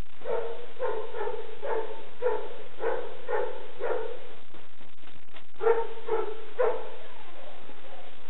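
A search-and-rescue dog barking repeatedly: about eight short barks, a pause of a second or so, then three more. This is typical of the bark alert a rubble-search dog gives on finding a hidden person.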